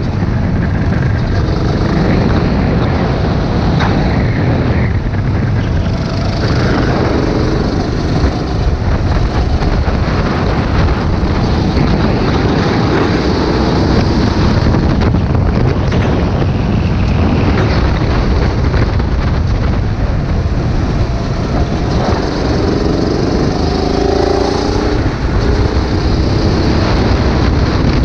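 Go-kart engine running at racing speed, recorded onboard, its pitch rising several times as the kart accelerates out of corners. Wind rush over the microphone runs through it.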